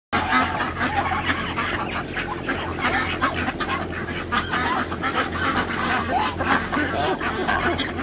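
A flock of domestic ducks and geese calling all at once: continuous, overlapping quacking and honking with no pause.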